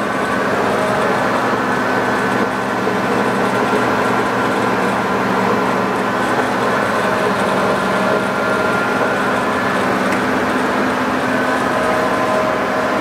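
TOS SU125 heavy engine lathe running at a slow speed, its gear drive giving a steady mechanical hum with several steady whining tones as the power compound feeds.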